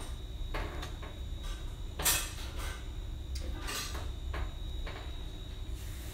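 A run of about ten short clatters and knocks, kitchen handling noise, with the loudest about two seconds in and the last near five seconds. A faint steady high-pitched whine runs under them.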